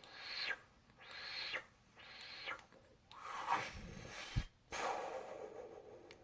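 Mouth-made laser sound effects: three short breathy hissing blasts about a second apart, each trailing downward, then two longer blasts for explosions, the first ending in a low thump.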